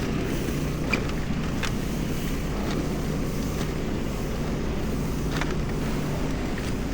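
Steady wind and road noise picked up by a body-worn camera microphone while riding a bicycle through city traffic in a snowstorm: a low rumble with a faint hum, and a few light clicks about one, one and a half, and five and a half seconds in.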